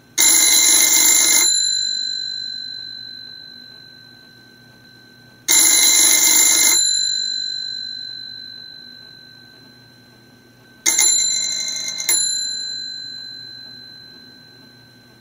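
Mechanikai Művek CB24 rotary-dial telephone's twin bells ringing: three rings of about a second and a half, roughly five seconds apart, each leaving the bells humming as it fades. The third ring falters and restarts briefly just before it stops.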